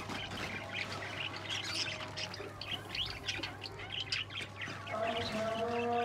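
Flock of pet budgies and lovebirds chirping, many short overlapping chirps. A steady held tone with overtones comes in about five seconds in.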